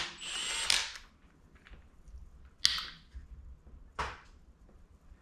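Hand wrench working a bolt on a Toyota 1JZ engine: a brief scrape near the start, then two sharp metallic cracks about a second and a half apart.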